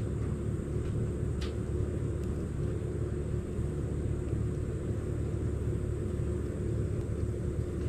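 Steady low background rumble with a faint constant hum, and a single light tap about a second and a half in.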